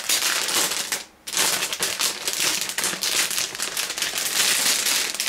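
Metallised anti-static bag crinkling and crackling as it is handled and opened, with a short pause about a second in.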